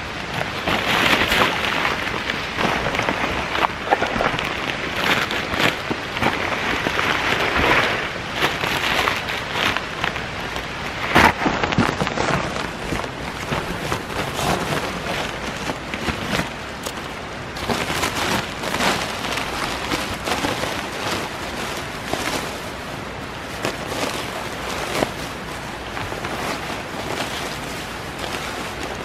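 Nylon camping gear being handled: an inflatable sleeping pad and hammock quilt fabric crinkling and rustling in irregular bursts, with one sharp knock about eleven seconds in.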